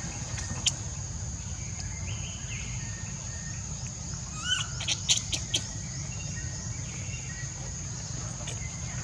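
Steady high-pitched insect drone over a low rumble, with a cluster of short rising chirps and a few sharp clicks about four and a half to five and a half seconds in.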